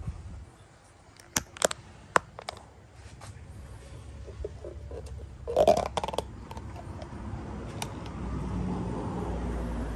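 Plastic mixing cups and small paint tins being handled on a wooden table: a few sharp clicks and taps, then a louder clatter about five and a half seconds in. A low steady rumble builds over the last couple of seconds.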